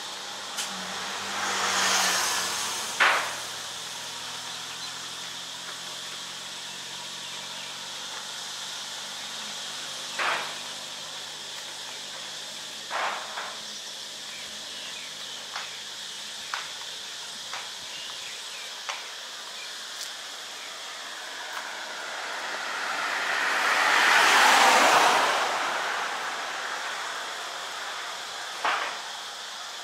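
Steady outdoor hiss with a vehicle passing by, swelling to its loudest about 24 seconds in and fading away, and a scattering of short sharp clicks.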